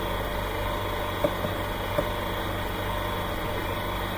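Steady low electrical hum with an even hiss underneath, the constant background noise of the recording. Two light clicks come about a second and two seconds in.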